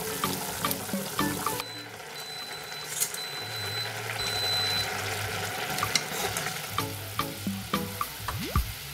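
Saucepan of water with spaghetti at a rolling boil, bubbling and hissing steadily. Background music with plucked notes plays over it in the first second or so and again in the last couple of seconds.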